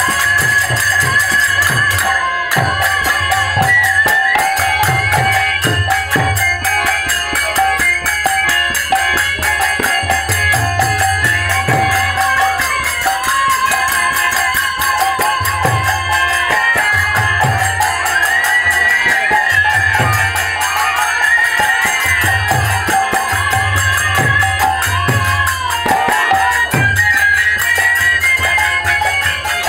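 Instrumental passage of Bengali naam kirtan: metal hand cymbals jangle steadily over regular low drum beats, with a wavering melody line above held tones.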